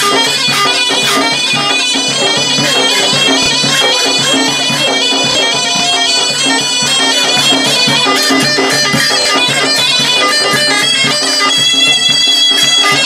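Live Tunisian folk music: a loud, reedy bagpipe-like wind instrument playing an ornamented melody over a large drum beating a steady rhythm.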